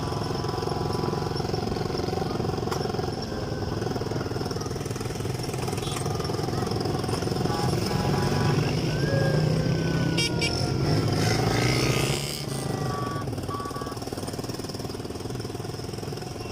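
An elderly woman snoring: a low, rough rattle that runs on without a break, louder for a few seconds in the middle.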